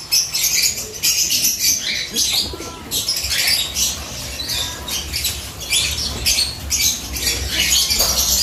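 Racing pigeons flapping their wings and scrambling inside a wire cage as a hand reaches in among them: a busy, irregular rush of wingbeats and scuffling.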